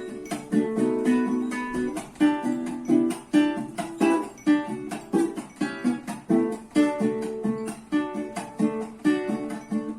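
Venezuelan cuatro, a small four-string guitar, played solo: a lively melody of quick plucked notes over chords.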